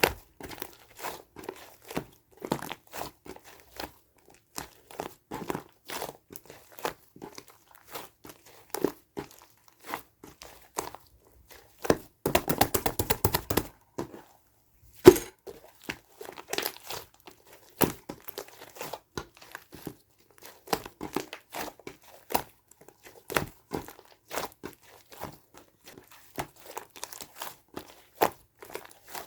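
Close-up crinkling and rustling of paper or plastic being handled, with scattered light taps and clicks. About twelve seconds in there is a fast run of clicks lasting under two seconds, and soon after it one sharp, loud click.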